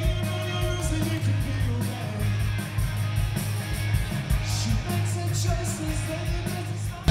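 Live rock band playing loud: distorted electric guitar over bass and a steady drum beat with cymbals, and a singer's voice, heard from the audience.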